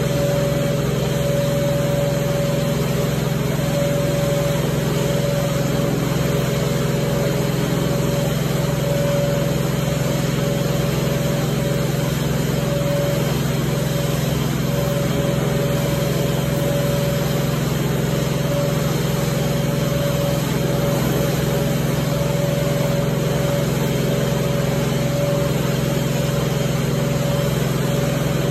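Carpet-cleaning extraction machine running steadily as its wand is worked over wet tile floor: a constant drone with a steady whine over it.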